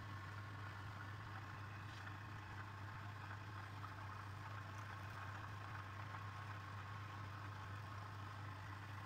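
Steady low electric motor hum with a faint higher whine held at one pitch, as from a wood lathe's motor running without any cutting heard.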